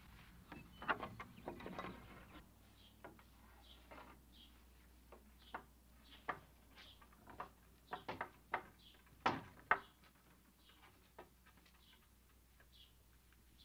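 A wooden barn door worked open, then scattered footsteps and knocks on wooden boards, the two sharpest a little past the middle, with short high bird chirps in between.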